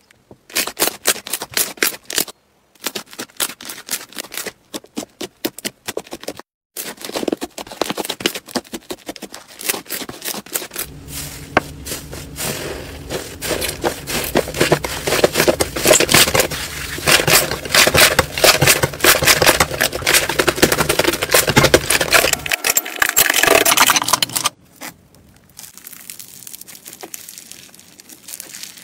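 Slime being poked, squeezed and kneaded by hand: dense rapid sticky clicks and pops, broken by a few short gaps. Near the end the sound turns quieter, with fainter crackling from a slime packed with foam beads.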